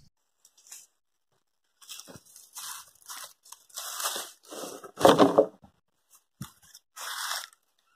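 Dry bamboo leaf litter crunching and rustling in irregular short bursts, the loudest about five seconds in.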